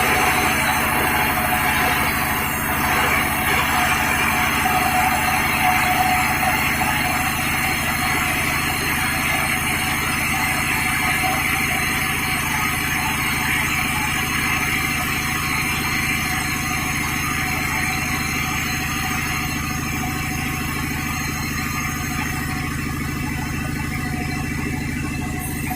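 Sawmill machinery running steadily: a low, even engine hum with a higher whirring noise over it, slowly easing a little in level.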